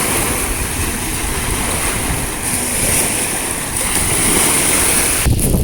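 Sea waves washing at the shore: a steady rushing noise that breaks off abruptly about five seconds in.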